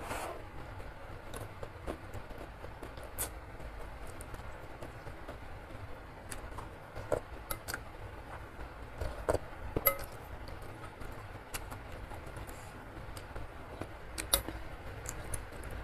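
Eating noises during a noodle mukbang: a metal spoon and fork clinking and scraping against a ceramic bowl, with mouth sounds of eating, as scattered clicks over a steady low rumble.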